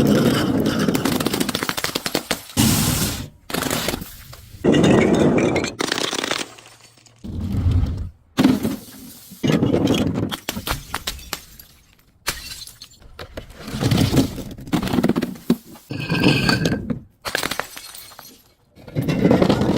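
Glass bottles and jars shattering one after another: about a dozen loud crashes, each trailing off over a second or so.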